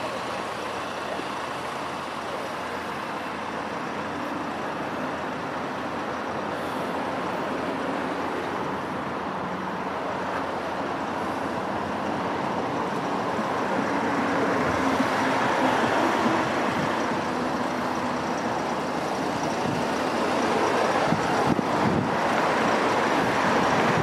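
Motor vehicle noise: a steady rushing drone of engines and road traffic that swells about halfway through and again near the end.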